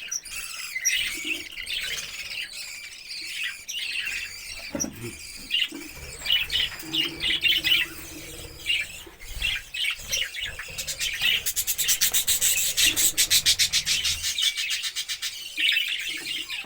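Small pet parrots chirping and chattering in many short, high calls, with a fast rattling trill that runs for about three seconds past the middle.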